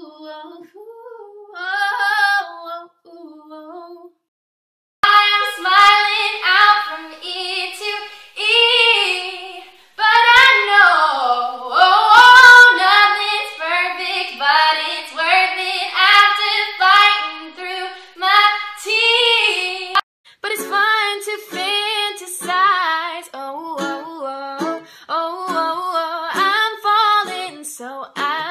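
A young woman singing solo, with a short break a few seconds in. In the last several seconds she sings over a strummed ukulele.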